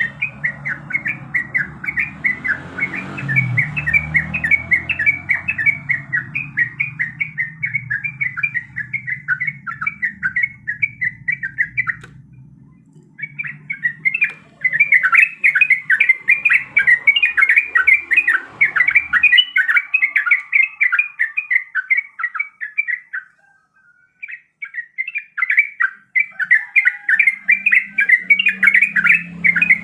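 Yellow-vented bulbul (trucukan) singing a fast, chattering run of repeated chirps, about four to five a second, breaking off briefly twice. This is the bird's sustained 'gacor' song, of the kind used to call others of its kind.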